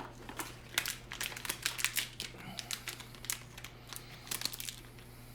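A mystery pin box being opened by hand: irregular crinkling and sharp clicks of packaging, thinning out near the end.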